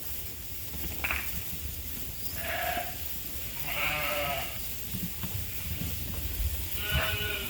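Sheep bleating, four separate calls with the longest about four seconds in, over a steady low rumble.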